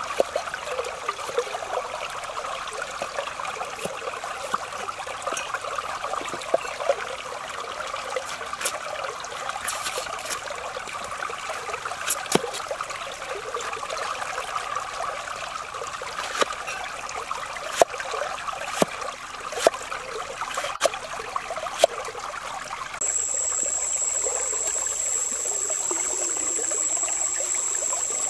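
A stream running, with sharp knife chops on a cutting board now and then as vegetables are sliced. About 23 s in, the sound switches to a louder steady hiss with a thin high tone: a wok of soup boiling and steaming over a fire.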